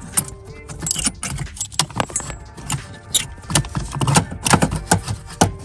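Irregular sharp metallic clinks and clicks of hand tools and loose screws being handled while small screws are taken out of a blower motor housing.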